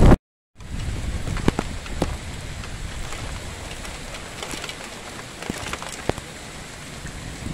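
Steady rain falling, with scattered sharp taps of individual drops close by. Right at the start a loud low rumble cuts off abruptly and the sound drops out for a moment before the rain resumes.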